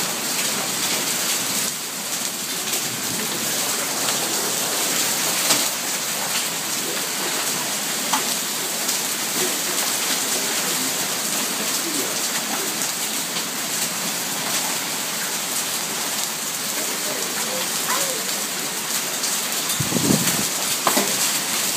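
Heavy rain and hail falling, a steady hiss with a few sharp clicks of hailstones striking. A low rumble comes near the end.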